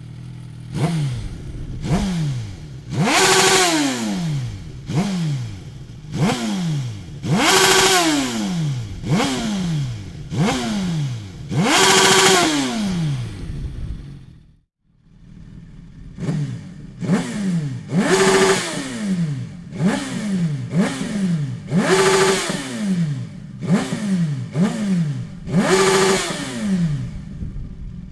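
Suzuki GSX-S 1000 inline-four engine revved through an aftermarket Dominator exhaust: repeated quick throttle blips, each rising sharply and falling back, with a bigger, longer rev about every four seconds. The sound drops away briefly about halfway through, then the blips start again.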